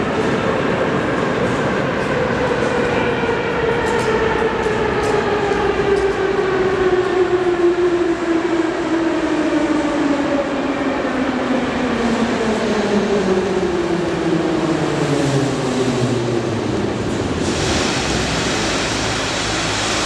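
Moscow metro train running with a whine that falls steadily in pitch over about sixteen seconds as the train slows. A hiss of air starts near the end.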